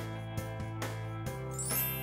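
Intro jingle music with held low notes under a run of short, bright notes, and a rising sparkly shimmer near the end.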